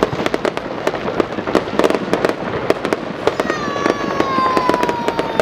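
Fireworks display: a dense run of sharp bangs and crackles, several a second, over a continuous rumble. Over the second half, a long whistle falls slowly in pitch.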